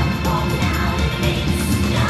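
Music soundtrack with a strong bass line.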